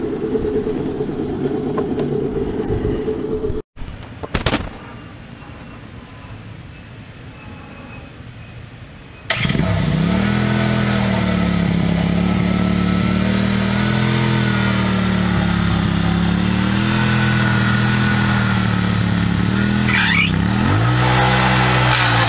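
Predator 670cc V-twin engine on a stump grinder running loud; after a break, with a quieter stretch and a single knock, it runs at speed again about nine seconds in. Its pitch wavers and sags under load as the cutter wheel works the stump, dipping hard near the end and climbing back.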